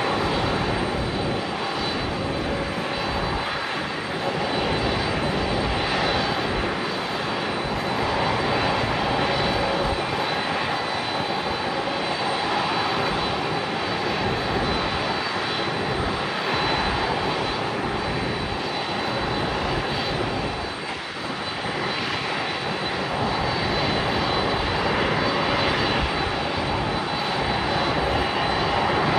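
Boeing 767's jet engines running at idle after pushback: a steady rush of noise with a thin, steady high whine.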